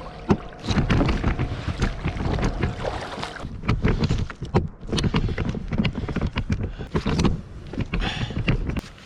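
Fishing kayak on the sea: water splashing and knocking against the hull in many irregular small hits, over a low rumble of wind on the microphone.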